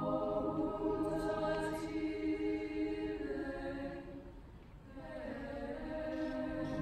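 Large choir singing sustained chords. The sound fades to a soft point about four and a half seconds in, then swells back up.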